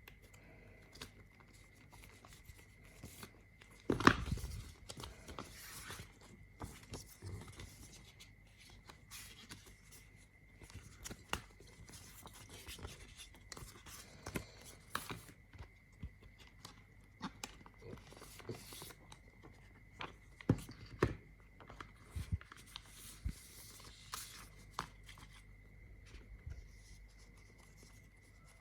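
Hands handling the packaging: scattered clicks, rustles and short tearing sounds, with one sharp knock about four seconds in. A faint steady high-pitched tone runs underneath.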